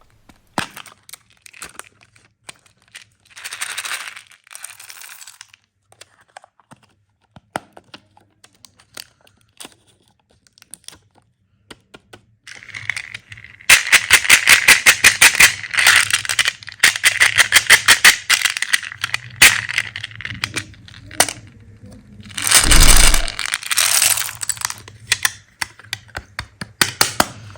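Hard candies clicking and clattering against one another and a hard plastic container. Scattered single clicks give way, about halfway through, to a fast run of sharp clicks lasting several seconds, and a louder rushing clatter comes near the end.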